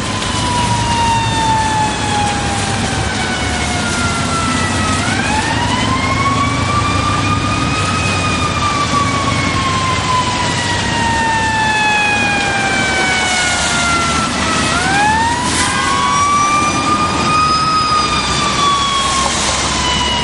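Fire engine siren wailing in long slow cycles, each rise in pitch quicker than the long fall that follows, twice over, above the steady rumble of engines and traffic.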